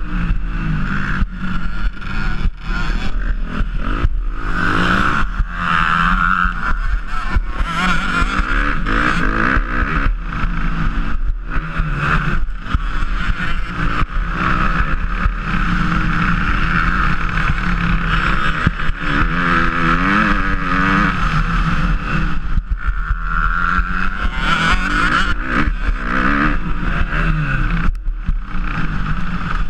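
Motocross bike engine, heard from on the bike, running hard under race throttle; its note rises and falls over and over as the rider accelerates and backs off, with a few brief dips when the throttle is shut.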